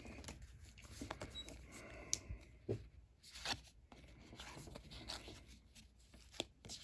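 Faint rustling and a few soft clicks of sports trading cards being handled.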